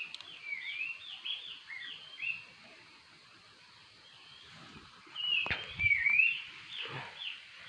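A bird singing, short whistled notes that swoop up and down, in two bouts with a quieter gap between them; a single sharp knock about five and a half seconds in.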